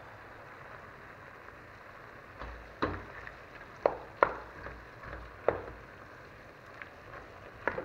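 Wooden spoon stirring vegetables and yogurt in a stainless steel pot, knocking sharply against the pot about five times from about two and a half seconds in, over a steady low hiss.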